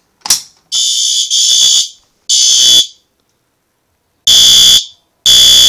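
A fire alarm pull station is pulled with a sharp click, and SpectrAlert Advance fire alarm horns sound almost at once, loud. After a longer first blast they settle into the temporal-three evacuation pattern: half-second blasts, three to a group, with a pause of about a second and a half between groups.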